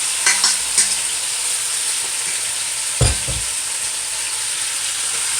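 Chopped seasoning sizzling steadily in hot oil in a pot as it is sautéed and stirred. There are a few light clicks in the first second and a single dull knock about three seconds in.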